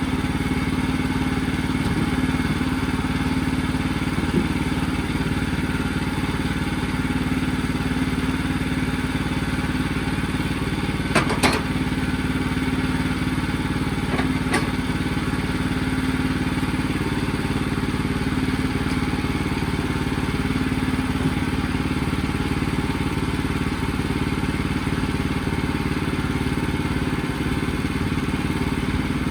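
Sawmill engine running steadily at a constant speed. Two sharp knocks stand out, about eleven and fourteen seconds in.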